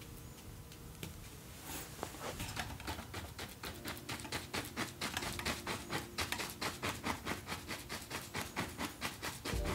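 A 2-inch paintbrush tapping and scrubbing paint onto a stretched canvas, a quick even run of about four strokes a second that starts about two seconds in and grows louder.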